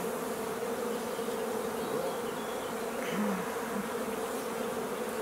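Honeybees swarming over an open hive, buzzing in a steady hum.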